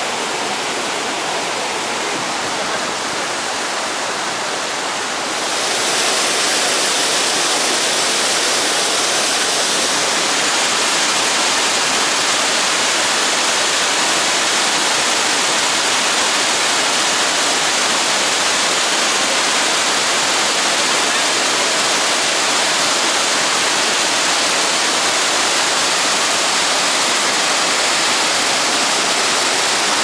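Iguazu Falls: the steady, loud rushing roar of masses of falling and churning water. It grows louder and more hissing about five seconds in, then holds steady.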